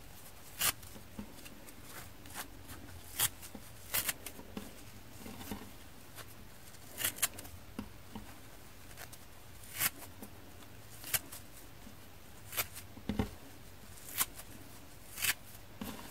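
Dry sponge's scouring pad torn apart by hand into small tufts: a dozen or so short, crisp rips at irregular intervals, with faint rustling of the fibres between them.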